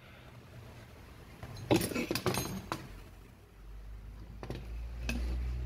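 A quick cluster of sharp metallic clinks and knocks about two seconds in, from metal parts and tools being handled on a metal workbench, with one or two lighter clicks later. A low steady rumble comes in about halfway through.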